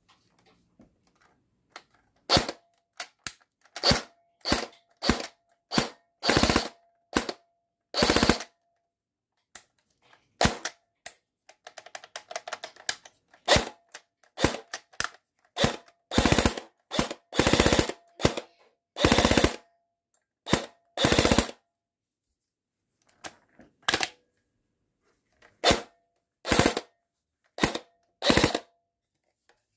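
FN Herstal P90 airsoft electric gun dry firing with no BBs: the gearbox cycles in quick single shots and short full-auto bursts of up to about a second, with pauses between them.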